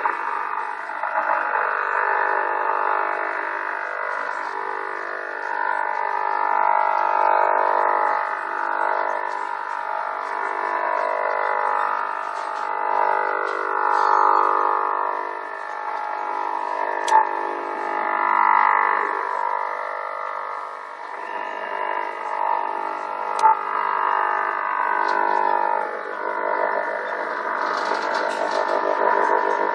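Audio from a shortwave receiver tuned to the 40-metre amateur band: an unexplained signal of many steady tones sounding together, with slow whistling glides that sweep up and down through them, over band noise. Two short clicks break in, about halfway through and again a few seconds later.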